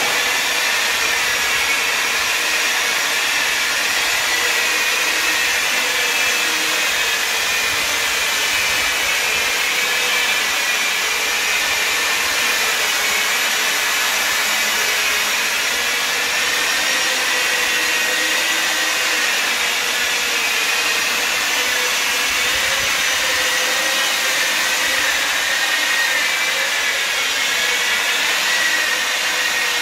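Handheld electric disc polisher, an angle-grinder-type tool with a round buffing pad, running steadily as it buffs a glossy oxide-finished floor. Its motor whine wavers slightly in pitch as the pad is pressed and moved over the floor.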